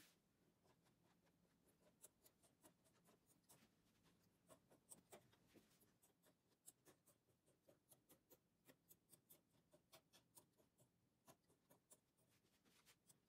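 Faint, irregular light clicks of the metal latch needles on a midgauge knitting machine as yarn is wrapped onto them by hand, a few clicks a second.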